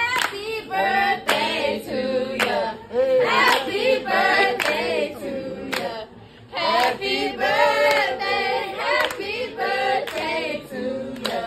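A group of people singing a birthday song together, with hand clapping along, and a short break about halfway through.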